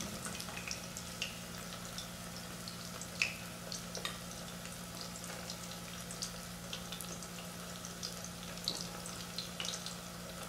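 Tofu cubes frying in hot oil in a stainless steel saucepan to crisp a crust on the outside: a steady sizzle with many scattered crackles and pops. A low steady hum runs underneath.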